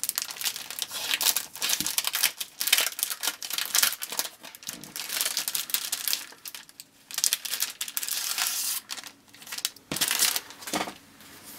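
Sticker sheets and their packaging rustling and crinkling as they are handled and sorted, in irregular bursts with a short pause about two-thirds of the way through.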